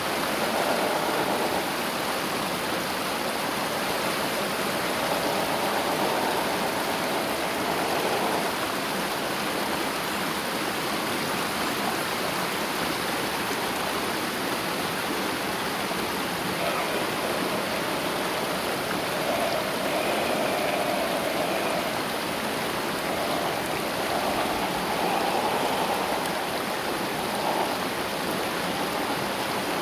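River water running steadily over stones, a continuous rushing. A faint whine comes and goes several times over it, the small electric motor of an MN 128 RC rock crawler.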